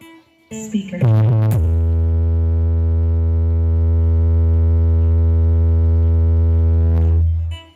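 HMD Audio sound system with its subwoofer stack playing a long, deep synth bass note during a sound check. A short wobbling pitch bend comes about a second in, then one steady note holds for about six seconds and fades out near the end.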